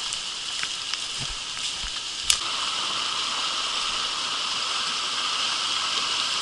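Steady hiss of a shallow, rocky stream running over stones in the rain, getting a little louder about two and a half seconds in. A few sharp clicks sound over it, the loudest a little past two seconds.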